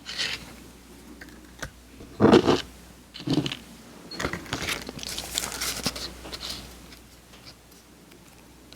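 Close-miked crinkling and crunching of edible candy paper, in several short bursts. The loudest burst comes about two seconds in, and a longer, higher, crinkly stretch follows in the middle.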